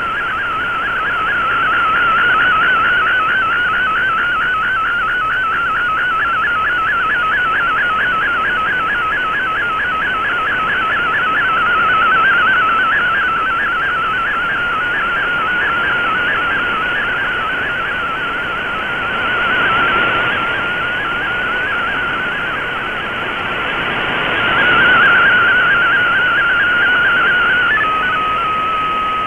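Shortwave digital-mode picture transmission received on an Icom IC-R8600: a wavering, whistle-like tone whose pitch follows the picture's pixels, over radio hiss, swelling and fading with the signal. Near the end the warble gives way to a steady lower tone as the picture finishes.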